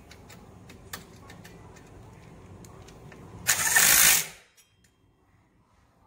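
Cordless power driver spinning once in a short burst of just under a second, about three and a half seconds in, driving a rear-rack mounting screw into the bicycle's rear dropout. Before it, faint clicks of handling the tool and parts.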